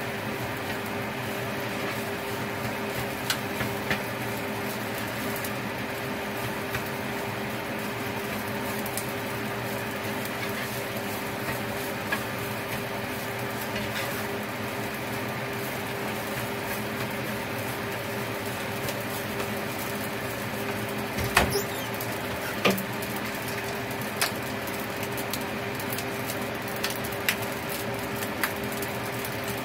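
Rice frying in a pan: a steady sizzle over a faint hum, with scattered clicks and taps of a utensil against the pan, several close together about two-thirds of the way through.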